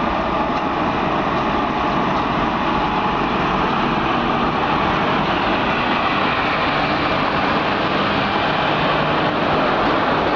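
An Indian Railways WAG-7 electric freight locomotive passing at close range: a steady, loud rumble of wheels on rails and running gear, with a faint steady whine running through it.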